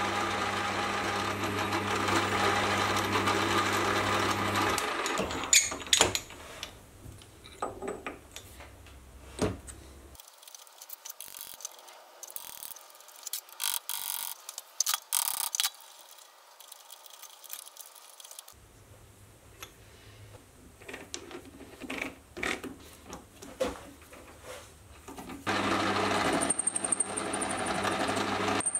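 Mini metal lathe running while a centre drill in the tailstock chuck drills into the spinning workpiece; after about five seconds it stops, leaving a quieter stretch of scattered clicks and knocks. About 25 seconds in, the lathe runs again, turning down a steel bar with an insert cutting tool, with a thin high whine.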